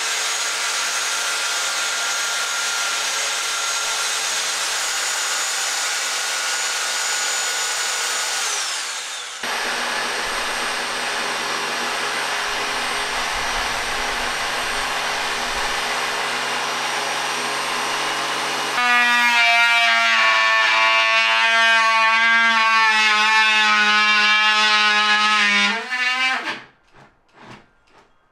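Power tools working plywood in turn: a circular saw ripping the sheet, its whine falling as the blade spins down about eight seconds in; then a jigsaw cutting steadily; then a louder, more tonal cordless drill whine that breaks into short trigger bursts near the end.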